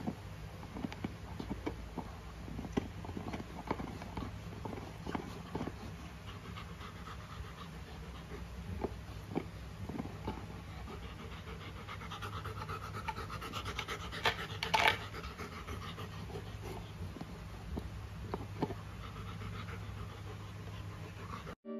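Golden retriever panting while gnawing a carabao horn chew, its teeth clicking and scraping on the hard horn in irregular bursts, louder for a moment around the middle.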